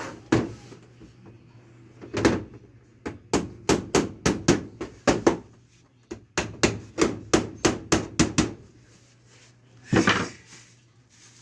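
Hammer blows, struck in quick runs of about four a second with pauses between the runs, as a carpenter drives nails into wood.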